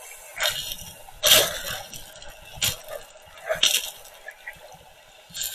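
Muffled underwater water noise heard through an action camera's waterproof housing: short sloshing, bubbling surges of water every second or so over a faint hiss.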